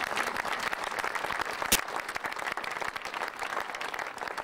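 Audience applauding, a dense patter of many hands that slowly dies away toward the end. A single sharp click cuts through a little under halfway.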